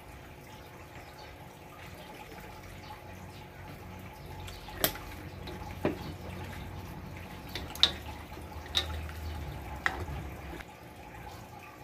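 Pork pieces simmering in water and soy sauce in a metal wok while a metal ladle stirs them, clinking sharply against the wok five times about a second apart from a little before the middle.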